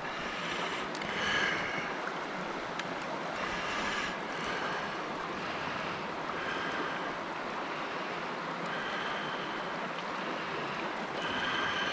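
Creek water rushing steadily over the stream bed.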